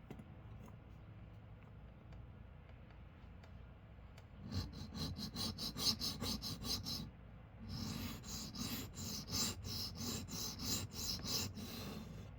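Steel pocket-knife blade (Civivi Vision) scraped back and forth across a sharpening stone in quick, rhythmic strokes, starting about four seconds in, with a short pause in the middle. The edge is being ground to its apex.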